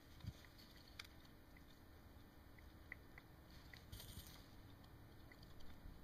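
Near silence: faint clicks and small knocks of wires and a soldering iron being handled, with a brief soft hiss about four seconds in.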